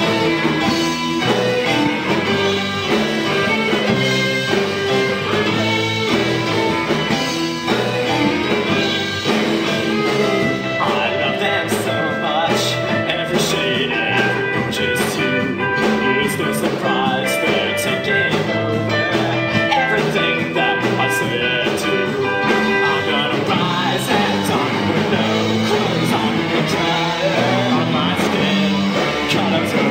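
Live rock band song with singing, recorded from a small show, at a steady full level; cymbal strokes come in prominently about twelve seconds in.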